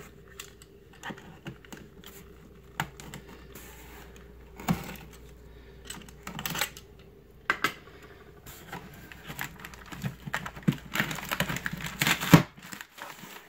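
Red utility knife cutting the packing tape along a cardboard shipping box, with irregular clicks, taps and scrapes of the blade and hands on the cardboard. Near the end a denser, louder stretch of tearing as the tape seam is pulled open, ending in one sharp crack.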